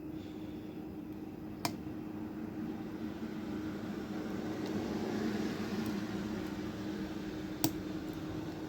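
Lock pick and tension wrench working in a lock's keyway, two sharp clicks about six seconds apart standing out over a faint scraping, with a steady low hum underneath.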